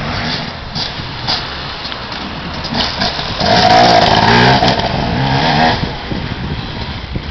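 Enduro dirt bike riding past close by, its engine revving up and down as it goes, loudest about four seconds in.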